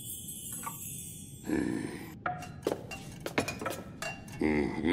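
A run of light clinks and sharp taps, cartoon sound effects, with a short voice-like sound near the end.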